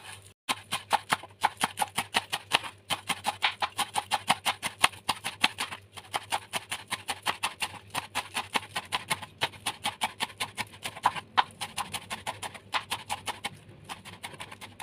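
Rapid chopping of spring onion and celery leaves with a broad-bladed kitchen knife on a wooden cutting board: a fast, even run of knocks, about six a second.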